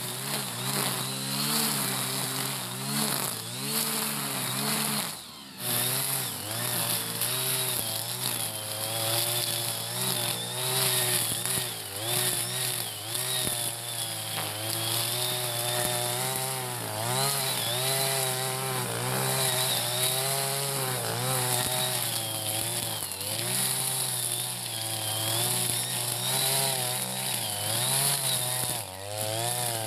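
Petrol brush cutter engine running while it cuts grass, its pitch rising and falling as the cutting head bites into the stems. There is a brief drop in level about five seconds in.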